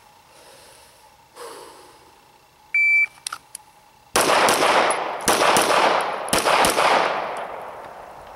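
A shot timer beeps once, about three seconds in. Just over a second later an S&W M&P Pro Series 9mm pistol fires six rapid shots in three quick pairs, two on each of three targets, about a second between pairs. The echo trails off afterwards.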